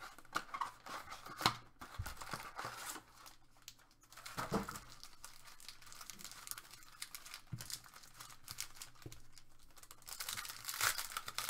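Foil-wrapped trading card packs being crinkled and torn open by hand, with the handling of a cardboard hobby box: irregular crackling and tearing, with a denser burst of crinkling near the end.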